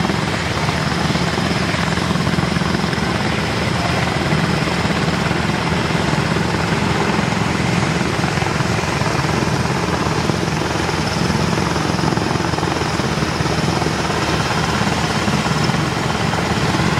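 Military turbine helicopters running: the rotors and engines of a helicopter turning close by on the ground, mixed with a second helicopter flying low overhead. The result is a loud, steady, dense rotor and turbine noise that does not let up.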